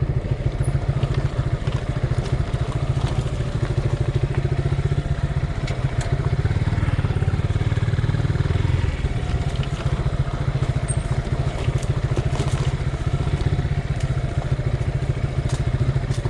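Suzuki Gixxer 150's single-cylinder engine running steadily under way, heard from on the bike, with a slightly heavier stretch partway through and occasional light clicks and rattles.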